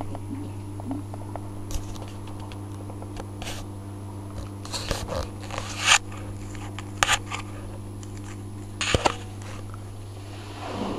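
Samsung WF9700N3W front-loading washing machine on its wool wash, the drum turning slowly with a load of wet blankets: a steady low hum with scattered short crackling noises.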